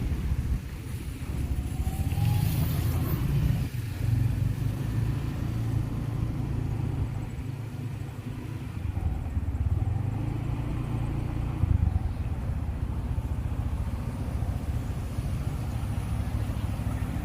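Motor vehicle engines running, a low rumble that swells and eases several times as traffic moves past.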